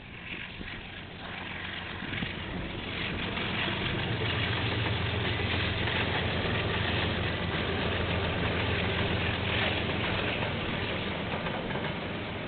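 Diesel locomotive engine running as a train draws near, a steady low hum that grows louder over the first few seconds and then holds.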